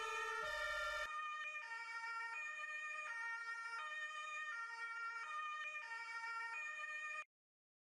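Two-tone emergency-vehicle siren of the German Martinshorn type, switching back and forth between a high and a low note. About a second in it changes to a quicker alternation, and it cuts off suddenly near the end.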